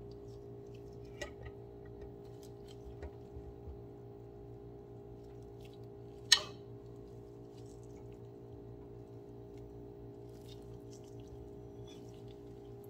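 Steady appliance-like hum with a few light clicks and knocks from kitchen handling at a wooden cutting board, and one sharp knock about six seconds in, the loudest sound.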